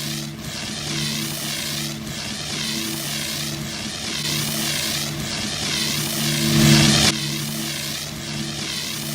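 Steady engine-like drone with a hiss above it that wavers up and down about every three-quarters of a second, swelling briefly about two-thirds through.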